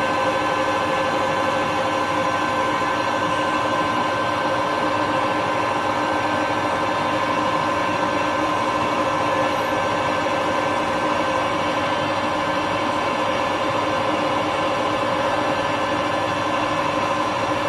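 Harrison 140 lathe running at a steady speed, its geared headstock giving a constant whine with several fixed tones, while a centre drill cuts into the end of a spinning stainless steel bar.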